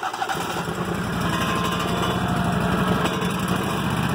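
Kohler Command PRO 26.5 hp EFI V-twin engine running. It grows a little louder over the first second, then runs steadily.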